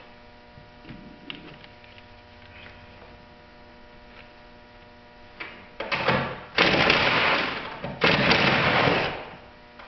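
Cordless impact driver hammering on a fastener inside a car's trunk, in three loud rattling runs over about three seconds starting a little past halfway. A steady hum runs underneath before it.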